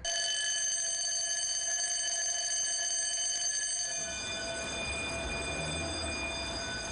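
Electric fire-station call-out bell ringing continuously. It starts abruptly and keeps a steady, even ring throughout. It is the alarm that summons the firefighters to the station.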